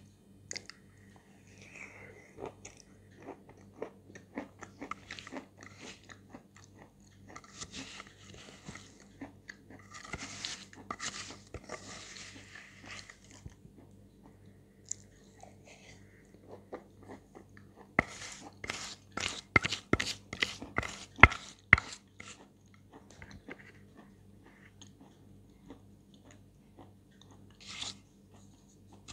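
Close-up chewing and crunching of chalk eaten by the spoonful, with quieter mouth noises. About 18 seconds in comes a run of loud, crisp crunches, two or three a second, for several seconds.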